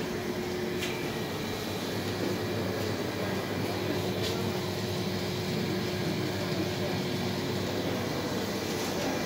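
Steady machine hum of refrigerated display cases and shop ventilation, with a faint constant tone and a couple of faint ticks.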